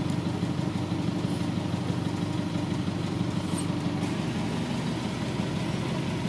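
An engine idling steadily, a low even hum with no change in speed.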